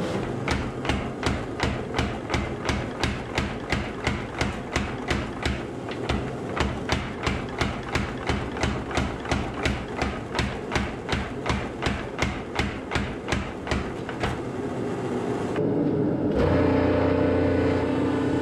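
Mechanical power hammer striking a glowing, red-hot Damascus steel billet in a fast, even rhythm of about three blows a second, setting the forge weld. The hammering stops about fifteen seconds in, and a hydraulic forging press's pump motor starts a steady hum near the end.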